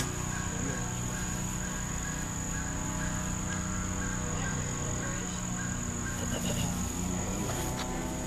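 Insects chirring in a steady high-pitched chorus, with a steady low hum underneath.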